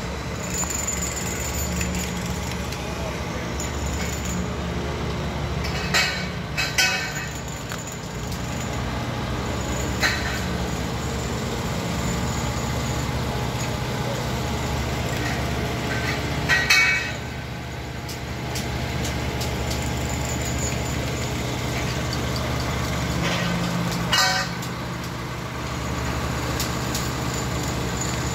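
Heavy construction machinery running steadily, with a few sharp metallic clanks and knocks scattered through: a pair about a quarter of the way in, one near the middle, a loud double clank a little past halfway, and one near the end.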